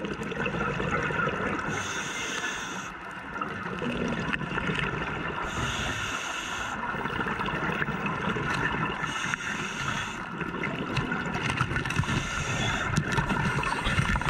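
Scuba regulator breathing picked up by an underwater camera: a hiss with each breath every three to four seconds over the gurgle of exhaled bubbles. Knocks and scuffles grow more frequent in the second half.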